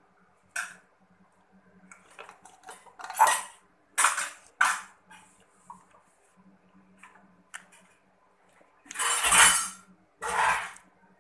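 Cutlery and dishes clinking and scraping in a scatter of short, sharp sounds. A longer, louder rustle comes about nine seconds in.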